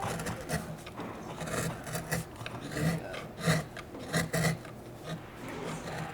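Carving tool scraping a wooden printing block in short, irregular strokes, cutting away unwanted lines.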